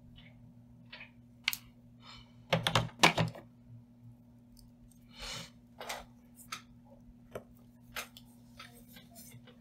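Sporadic light clicks and rustles of stiff crinoline mesh and ribbon being handled and pressed while a hot glue gun is used, with a cluster of louder clicks about three seconds in. A faint steady low hum underneath.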